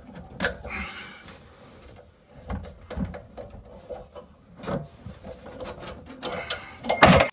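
A metal bar knocking and scraping in a kitchen tap's fixing under a stainless steel sink as the tap is tightened down: irregular clicks, taps and rubs, with a louder clatter near the end.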